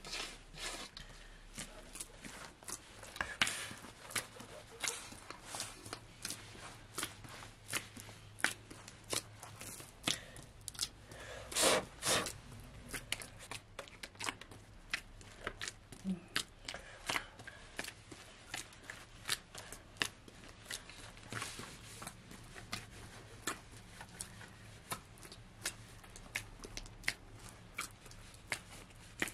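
Hands kneading dough in a large metal bowl: irregular short clicks and rustles, with one louder knock about twelve seconds in.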